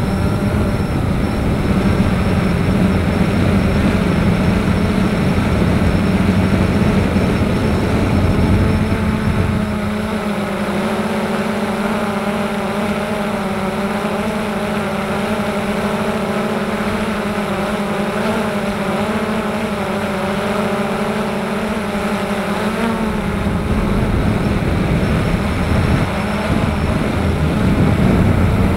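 A camera drone's electric motors and propellers, heard from its onboard camera: a steady whirring hum, with wind rushing over the microphone. The wind eases about ten seconds in and picks up again near the end, while the hum's pitch shifts slightly.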